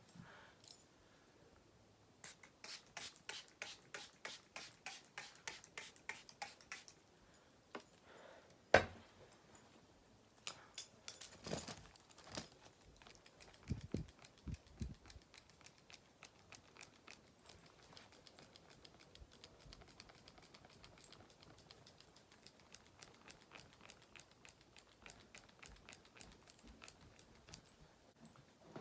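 Faint clicks and taps: a quick, even run of about four or five a second lasting several seconds, then a single sharp knock, then a few scattered small clicks.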